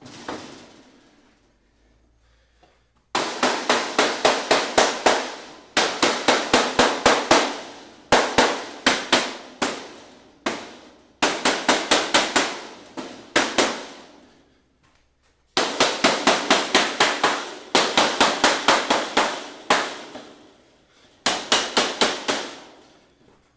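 Mallet striking a PVC enclosure panel in quick runs of taps, about five a second, with short pauses between the runs, knocking the top panel down into place.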